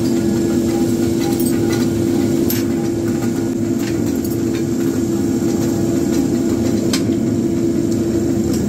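Forge-shop machinery running with a steady loud hum, with a few short metal clinks from tongs handling the hot steel.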